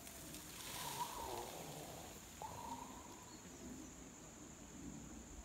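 Asian elephant tusker flinging dry soil over its back with its trunk in a dust bath: a soft rushing spray of scattering dirt about a second in, over a steady drone of crickets.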